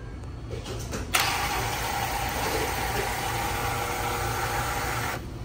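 Coca-Cola pouring from a soda fountain valve into a paper cup: a steady fizzing hiss that starts suddenly about a second in and cuts off near the end, over a low hum.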